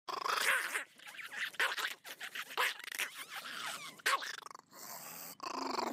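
Small long-haired dog vocalizing in a string of short rough bursts, one after another.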